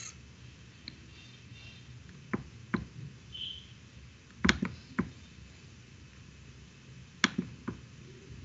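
Scattered clicks and taps at a computer: about seven short clicks, several in pairs half a second apart, over quiet room tone.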